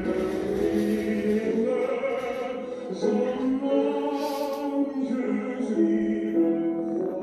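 Background music of choral singing, with long held notes in slow, overlapping lines.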